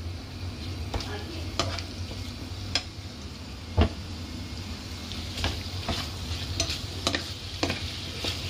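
Chicken, bell pepper and onion sizzling in a frying pan as they are stir-fried, the spatula scraping and knocking against the pan at irregular moments; the loudest knock comes a little before halfway.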